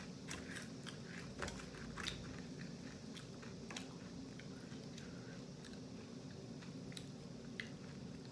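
Close-up mouth sounds of someone biting and chewing crispy fried food: a run of sharp crunches in the first few seconds, then slower, scattered crunches.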